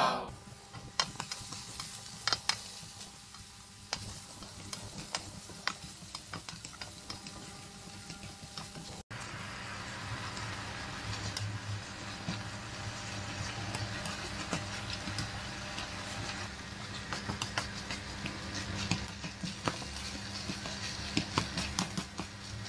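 Vegetables sizzling in a nonstick frying pan as they are stir-fried, with a spatula scraping and knocking against the pan many times. The sizzle gets louder about nine seconds in.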